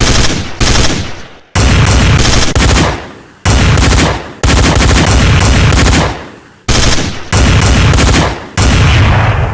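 Machine-gun sound effect: several loud bursts of rapid automatic gunfire, each ending in a fading tail.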